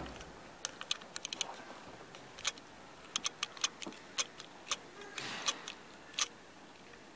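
A string of irregular, light, sharp clicks and ticks, about fifteen over five seconds, with a brief rustle a little after five seconds in.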